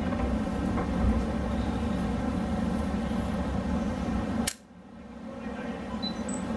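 Steady low hum of a standing ED79 electric locomotive's running equipment. A sharp click comes about four and a half seconds in, then the sound drops away and slowly builds back up.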